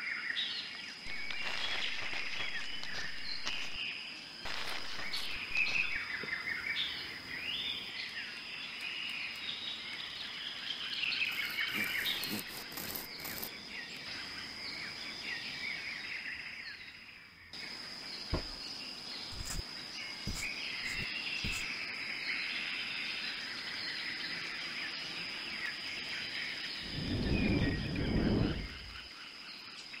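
Forest ambience of many small birds chirping and singing, over a steady thin high tone. Near the end a low rumble swells for about two seconds.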